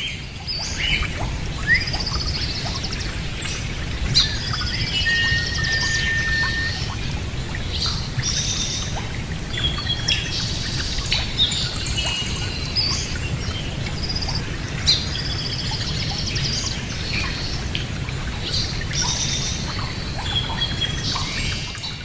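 Cockatiels chirping and whistling: many short high chirps and warbles, with one longer steady whistle about five seconds in, over a steady low rumble.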